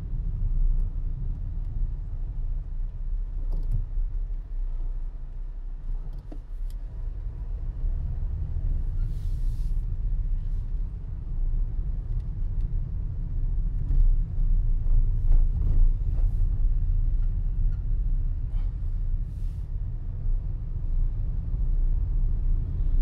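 A car being driven on a paved road, heard as a steady low rumble of road and wind noise with little higher sound.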